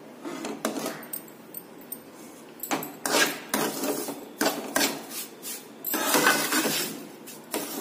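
Steel ladle scraping and stirring semolina and ghee around a metal kadhai in irregular strokes, mixing the suji into the ghee before it is roasted for halwa.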